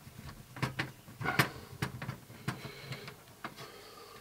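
Scattered small metallic clicks and taps of a screwdriver and screws against the sheet-metal chassis of a VHS/DVD recorder being taken apart, the loudest about a second and a half in.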